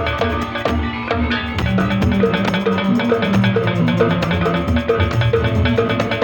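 Band music with kendang hand drums beating a fast, steady rhythm over a bass line, played through a sound system.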